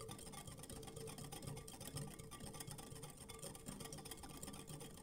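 Metal wire whisk beating a thin liquid mixture in a glass bowl: faint, rapid ticking and scraping of the wires against the glass.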